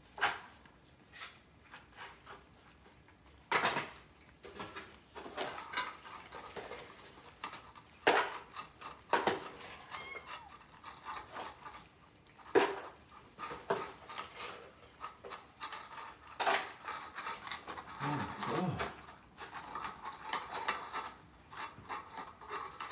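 Scattered clinks, scrapes and knocks of metal cat-food cans and food dishes, with a few sharp knocks standing out, as a crowd of cats feeds.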